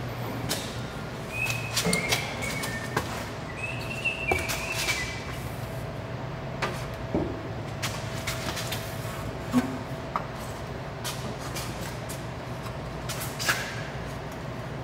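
Titanium aftermarket exhaust being hand-fitted under a car: scattered light knocks and clinks of the pipework against the mounts, with a few brief squeaks in the first few seconds, over a steady hum.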